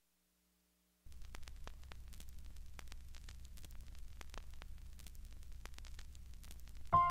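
A low steady hum with scattered crackles and clicks, starting about a second in. Near the end a sustained keyboard chord comes in.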